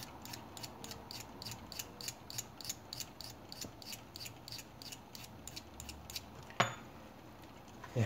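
Small blade of a Victorinox keychain knife being stroked along a small white sharpening stick: quick, light scraping strokes at about three a second. The strokes stop with a sharp click about two-thirds of the way through.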